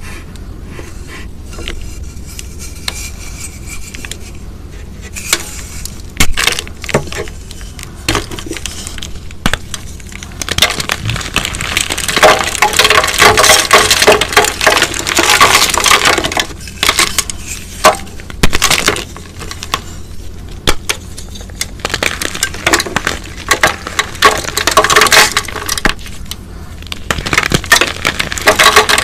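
A sun-dried, glitter-coated powder cylinder crushed between bare hands, cracking and crunching as it breaks into chunks and powder. Scattered cracks at first, then long stretches of dense crunching, the loudest about halfway through and again near the end.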